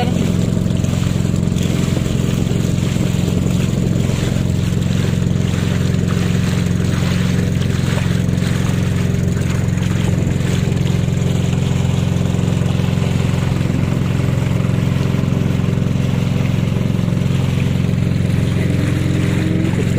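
Boat engine running steadily under way, a constant drone that does not change in pitch or level.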